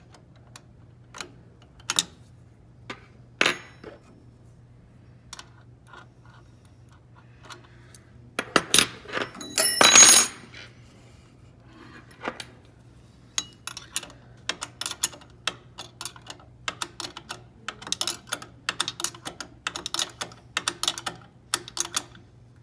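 Small metal clinks and clicks of a wrench and a nut with washers being worked on a steel bolt. A louder rattling clatter of metal parts comes about nine seconds in, and a quick run of light clicks fills the second half.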